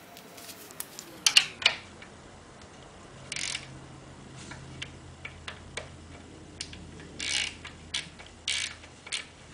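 Hand socket ratchet with an Allen bit clicking in short bursts as it snugs up a BMW K75's swing arm pivot screws, with a few sharp metal clinks about a second in.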